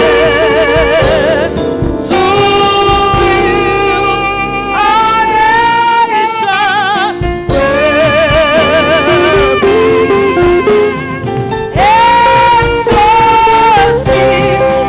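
A standing audience singing a song together over an instrumental accompaniment, in long held notes with vibrato.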